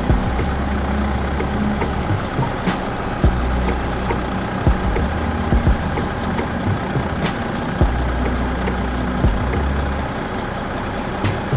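A motor running steadily, with a low hum that swells and drops back several times and scattered sharp clicks and knocks.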